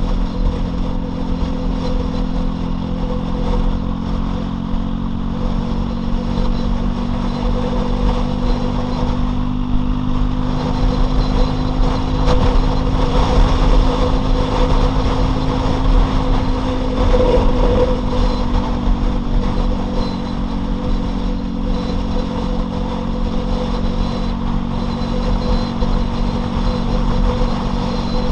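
Loncin LX250-12C motorcycle's single-cylinder engine running under way at a fairly steady pace, its note rising and falling slightly.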